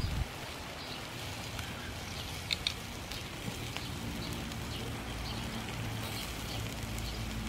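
Pork ribs on a charcoal grill's wire rack, crackling faintly over a low steady hum, with two sharp clicks about two and a half seconds in.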